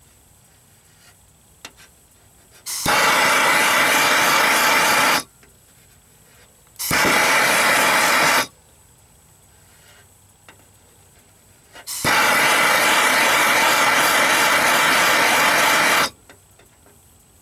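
MAP gas torch flame hissing in three bursts, each switched on and off abruptly, the last the longest, while it heats the aluminum hull to melt low-temperature aluminum brazing rod.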